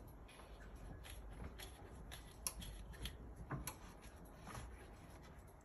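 Faint scattered light clicks and rustles of hands working a manual hot-stamping press and handling a polypropylene sheet, over a low steady hum.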